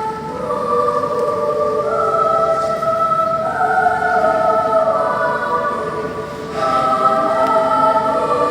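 Mixed children's choir singing long held chords in several parts, the chords moving step by step; the sound dips briefly about six seconds in, then the voices come back in.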